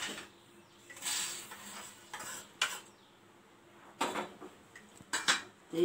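Stainless-steel plates and bowls clinking and scraping as dry-roasted coriander seeds are cleared from the pan. There is a short scraping rush about a second in, then several sharp clinks.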